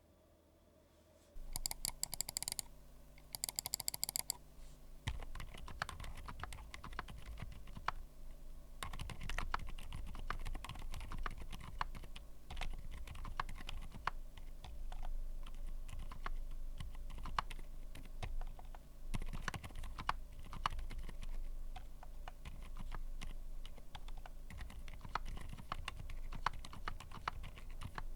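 Typing on a 60% mechanical keyboard fitted with factory-lubed TTC Silent Frozen v2 linear switches: soft, muted key strokes in quick, irregular runs. The typing starts about five seconds in, after two short clusters of sharp clicks.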